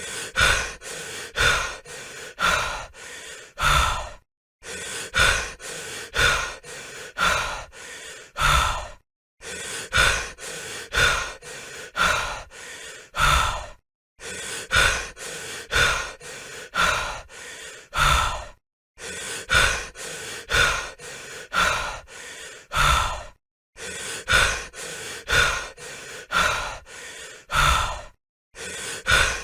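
A person breathing heavily: quick, noisy in-and-out breaths about two a second. The sequence repeats about every five seconds, with a short silent break between repeats.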